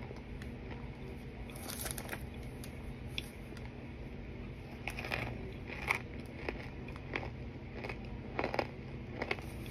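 A person biting and chewing hard baked cornstarch chunks, making irregular crisp crunches. The crunches are loudest a couple of seconds in, around the middle and near the end.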